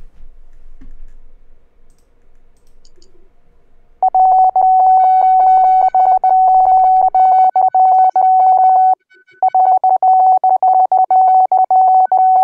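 Morse code practice tone from the G4FON Koch Method CW Trainer: a single steady tone near 750 Hz keyed rapidly into random letters at about 20 words per minute, over a light simulated static. It starts about four seconds in and pauses briefly near nine seconds.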